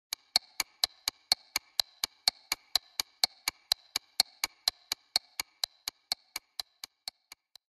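Clock ticking: a sharp click about four times a second with a faint ring between the clicks, fading over the last second and stopping.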